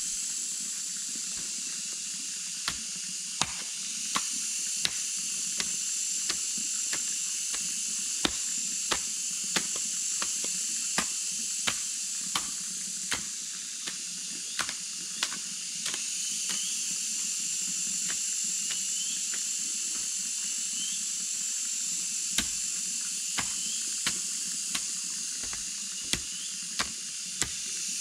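Repeated sharp knocks, roughly one a second, of a tool striking bamboo, over a steady high hiss of forest background, with a few faint bird chirps midway.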